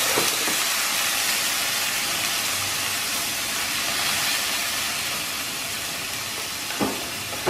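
Minced beef frying in a pan with a splash of water: a steady sizzling hiss as it is stirred. Two light knocks of the utensil against the pan come near the end.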